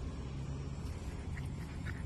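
Low, uneven outdoor rumble, with a few faint ticks in the second half.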